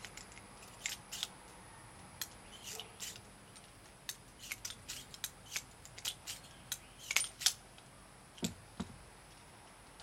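Single-action revolver, a Ruger Single Six in .32 H&R Magnum, being handled between strings of fire: a run of light metallic clicks and ticks as the cylinder is turned and the spent black-powder cases are worked out. Near the end come two duller knocks.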